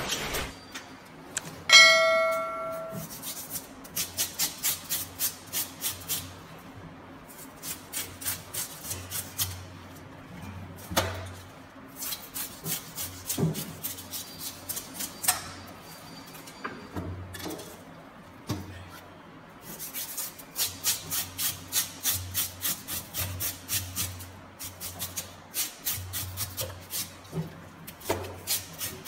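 A knife scraping and cutting at a large fish on a plastic cutting board, in quick runs of about four strokes a second with pauses between, the board thudding dully under the strokes. A short bright metallic ring near the start is the loudest sound.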